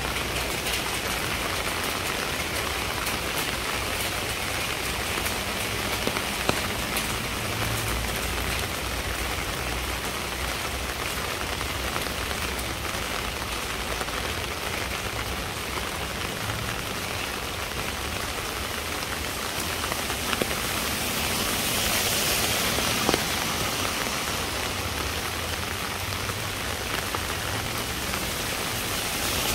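Steady rain falling, with scattered sharp drop ticks; it grows a little heavier for a few seconds about two-thirds of the way in.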